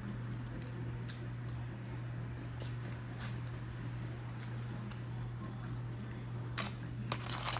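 Close-up eating sounds of chargrilled oysters being slurped from the shell and chewed: sparse wet mouth clicks and smacks, with a cluster of them near the end, over a steady low hum.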